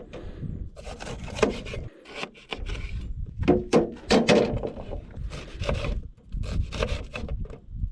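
Wood crackling and rustling at a burning Swedish torch log stove fed with small twigs, with gusty wind rumbling on the microphone. The crackles come irregularly and cluster most densely in the middle.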